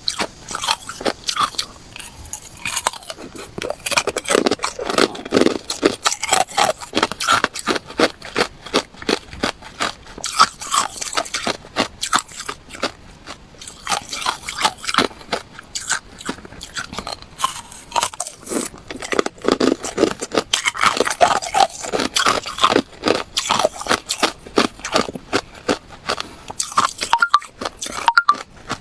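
Close-up crunching of hard ice being bitten and chewed, a dense run of sharp cracks and grinding crunches at several per second.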